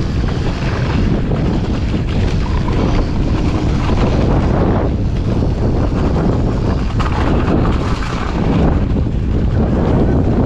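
Wind buffeting the microphone of a mountain-bike camera on a fast descent, over a continuous rumble from the tyres running on snow and rough ground. Frequent small knocks and rattles come from the bike over the bumps.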